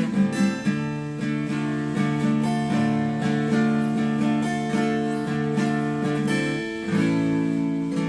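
Acoustic guitar played solo, chords struck over and over in an even rhythm and left to ring, moving to a new chord near the end.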